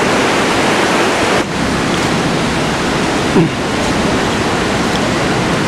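Steady, loud rush of the flooded Koshi River pouring through the opened gates of the Koshi Barrage.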